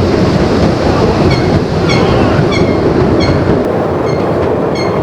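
Ride train running along its track: a steady rumble with a short, high squeak repeating roughly every two-thirds of a second from about a second in.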